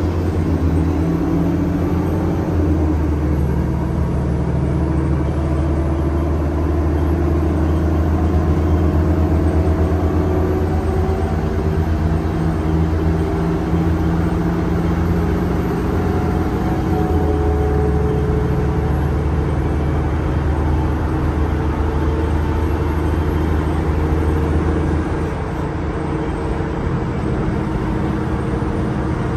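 A 2016 NovaBus LFS CNG city bus running on the road, heard from inside the cabin: its Cummins 8.9 L six-cylinder ISL-G natural-gas engine makes a steady low drone over road noise. The engine's pitch shifts a few times, and the sound drops a little about 25 seconds in.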